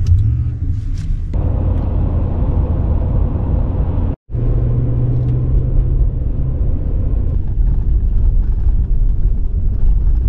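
Ram pickup truck driving on a snow-covered road, heard from inside the cab: a steady, loud low rumble of engine and tyre noise, with a short break a little over four seconds in.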